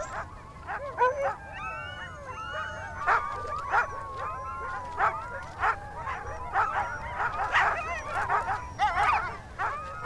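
A pack of sled dogs yelping, whining and howling over one another in many short, overlapping calls, with one long howl held through the middle. The dogs are agitated and frustrated at a polar bear eating their seal meat.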